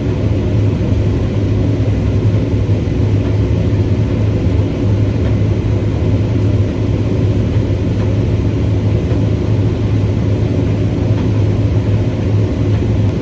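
Diesel engine of heavy farm harvest machinery running steadily with a low drone while a load of high-moisture corn is being unloaded.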